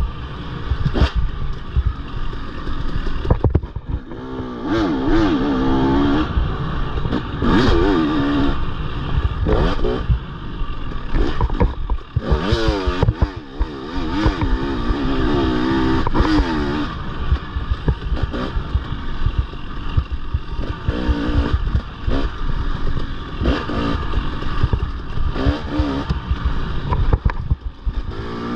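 Off-road dirt bike engine revving up and down over and over while riding a race trail, with frequent knocks and clatter from the rough ground.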